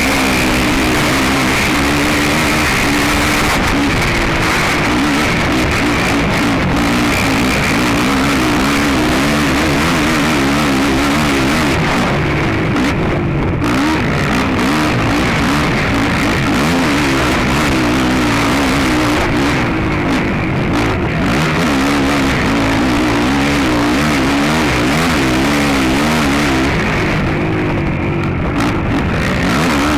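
Racing ATV's engine at speed, revs rising and falling constantly as the rider works the throttle, heard up close from a camera mounted on the quad. Guitar music plays over it.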